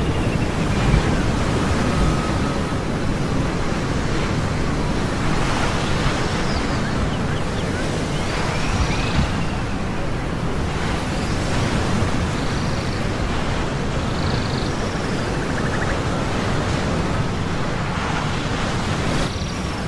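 Ocean surf washing steadily, with wind, and faint short high chirps now and then.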